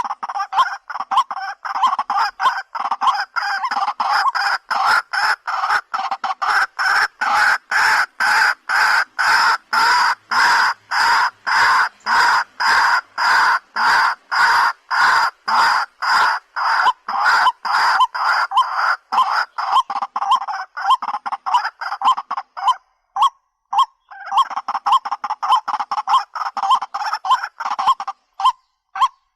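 White-breasted waterhen (dahuk) calling: short harsh notes repeated steadily at about two a second, with a brief break about 23 seconds in.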